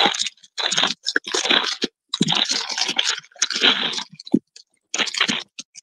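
Clear plastic wrapping crinkling as it is pulled off a rolled bundle of plastic drill bags, in several separate rustling bursts.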